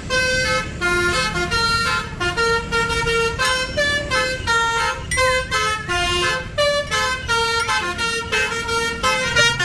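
Bus telolet horn, a multi-note bus horn, tooting a quick tune of short pitched notes that change every fraction of a second, with a steady low noise underneath.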